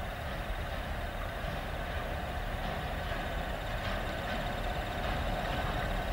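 An approaching train, not yet in sight, heard as a steady low engine rumble that grows slightly louder near the end.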